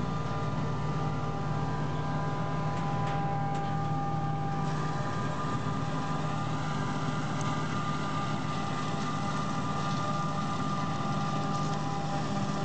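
Forage harvester chopping maize, with a tractor and trailer running beside it: a steady heavy engine drone with several high steady tones over it, continuous and unchanging.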